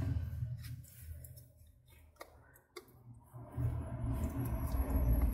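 Handling noise of a plastic Canon 337 toner cartridge being picked up and turned over. There are a few light plastic clicks in the first three seconds, then a low rubbing rumble from about three and a half seconds in.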